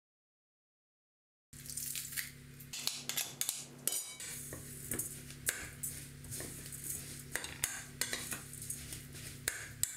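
Metal spoon stirring a dry spice, sesame and pepper-paste mixture in a glass bowl, scraping and clinking against the glass. It starts about a second and a half in, with many sharp clicks.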